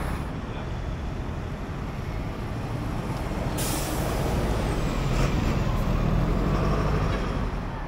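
A large bus passing close by, its engine and road rumble swelling and then easing off, with a short sharp hiss of air brakes about three and a half seconds in.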